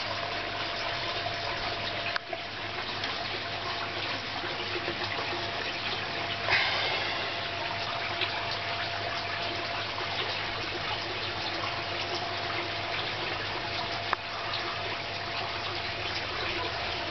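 Steady running, splashing water in a garden fish pond, with a faint steady hum underneath. The water is briefly louder about six and a half seconds in.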